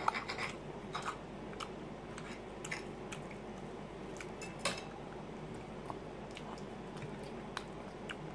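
Metal fork clinking and scraping on a ceramic plate while cutting and picking up food, in scattered light clicks with a cluster at the start and the loudest about halfway through.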